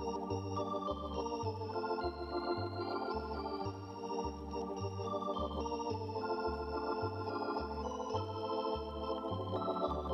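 Organ music with sustained chords over a steady bass beat, a little under two notes a second, played as horse-show arena music during the trot.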